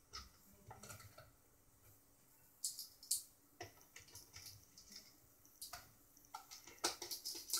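Sparse light clicks and taps of a magnetized screwdriver and a small screw being worked out of a mixer's fader bank, coming faster near the end.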